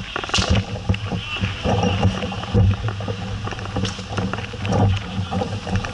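Ball hockey play: scattered short knocks and clacks of sticks and ball on the sport court, over a steady low rumble.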